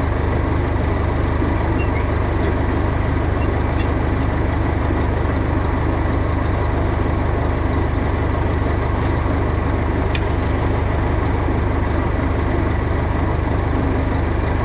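Tractor engine running steadily at an even speed, a heavy low drone with no change in pitch.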